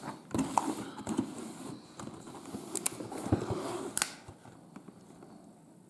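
Glossy cardboard box being handled and turned over on a tabletop: scraping and rustling with a string of light knocks and clicks, the sharpest knock about four seconds in, after which the handling stops.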